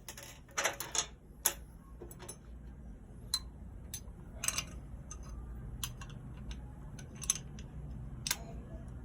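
Irregular sharp clicks and taps of small metal parts being handled: the steel balls of a fired seatbelt pretensioner being emptied out of the retractor. The clicks come close together in the first second or so, then more sparsely.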